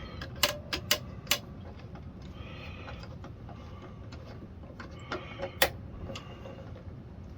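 Hand tools on a small petrol engine: a few sharp, irregular metallic clicks and taps, several close together in the first second and a half and one more loud one later.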